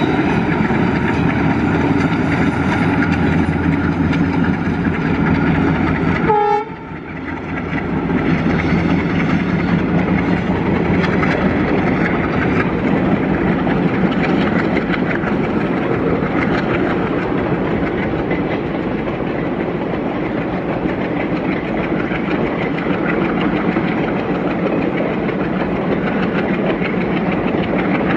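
Two ALCo WDM-3D diesel locomotives hauling a long passenger train, their engines running under load with the rumble of the coaches on the track. The sound changes abruptly about six seconds in, then carries on steadily.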